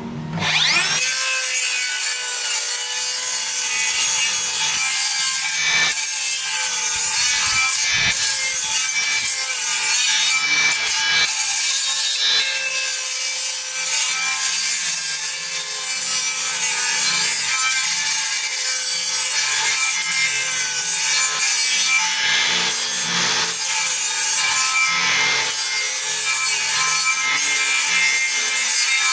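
Cordless circular saw spinning up with a rising whine, then cutting steadily through a timber beam.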